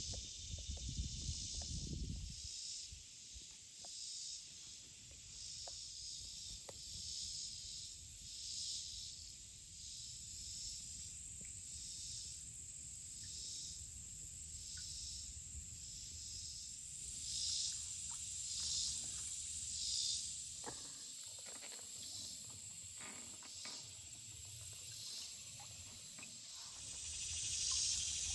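Insect chorus: a steady high drone with a high pulsing call that repeats about once or twice a second. There is a low rumble in the first couple of seconds and a few faint clicks in the second half.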